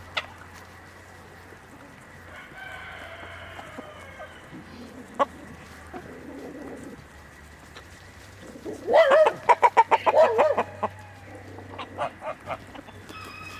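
Chickens clucking, with a loud burst of rapid cackling about nine seconds in and fainter calls before it.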